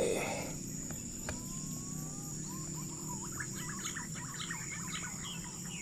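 Punai (green pigeon) whistling calls: a drawn-out whistle about a second in, then a run of short rising and falling whistles, over a steady high insect drone.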